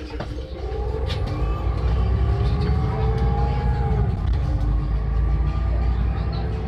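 City bus pulling away and accelerating, with a heavy low rumble and a drivetrain whine that rises in pitch, then drops about four seconds in.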